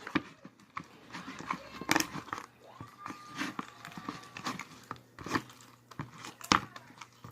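Slime being squished and worked by hand, with irregular sticky clicks and crackles, the strongest snap near the end.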